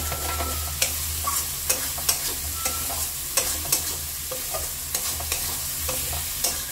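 Metal spatula scraping and knocking against a metal kadai while stirring potatoes and masala frying in oil, at the stage of frying the masala down as it starts to stick to the pan. Irregular sharp scrapes about twice a second over a steady sizzle and a low hum.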